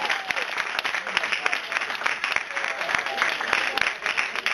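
Audience applauding: many hands clapping at once, with a few faint voices mixed in.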